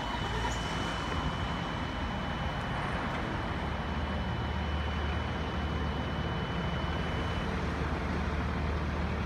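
Low, steady hum of an idling vehicle engine that grows stronger about halfway through, with a steady high-pitched tone over it that cuts off about three-quarters of the way in.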